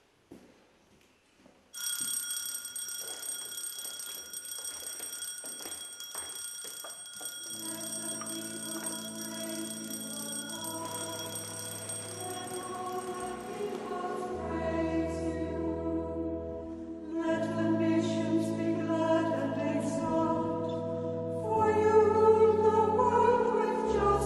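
A bell struck once, ringing on and fading slowly, then organ chords. From about halfway a choir of nuns sings with the organ, and the singing is loudest near the end.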